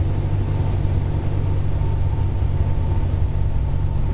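Cessna 172's piston engine and propeller droning steadily, heard from inside the cabin, with a faint steady whine above the low drone.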